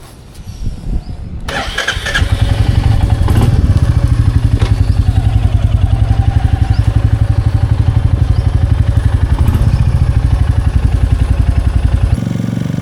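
Royal Enfield Bullet 350 single-cylinder engine being started about a second and a half in, catching almost at once and settling into a loud, even, pulsing idle. Near the end the sound drops to a quieter, steadier level.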